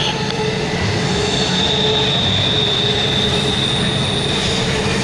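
CSX double-stack intermodal freight train rolling past: a steady rumble of steel wheels on rail. About a second and a half in, a high, steady wheel squeal joins it.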